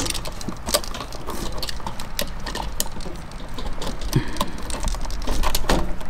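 Irregular small clicks and rustles of wire and plastic as the ground wire is worked into the last hole at the bottom of a GFCI outlet, over a low rumble.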